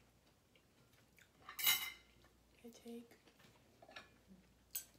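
Forks clinking and scraping on ceramic plates while pancakes and French toast are eaten, with one louder scrape about one and a half seconds in and a sharp click near the end. A brief murmur of a voice comes around three seconds in.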